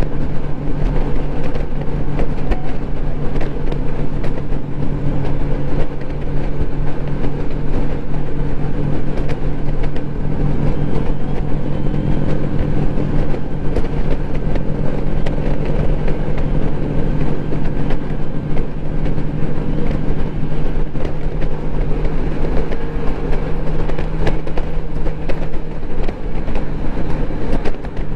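Honda Gold Wing motorcycle cruising at steady highway speed: an even engine drone under a constant rush of wind and road noise.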